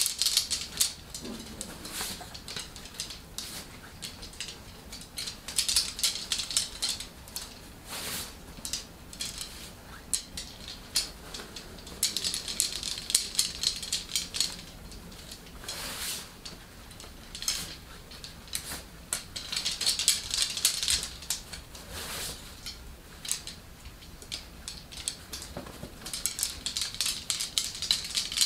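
Shaman's coloured ritual flags on wooden sticks being handled and rolled up, giving repeated bursts of light clicking and rattling about every six or seven seconds.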